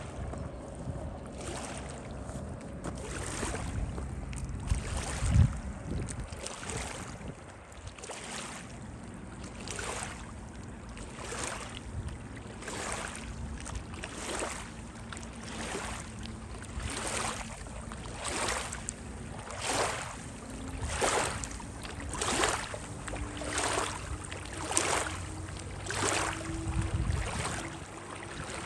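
Small waves lapping and splashing against the rocky, weedy shoreline in a steady rhythm, about one every second and a half, growing louder in the second half. A distant motorboat engine hums faintly underneath, and a gust of wind hits the microphone about five seconds in.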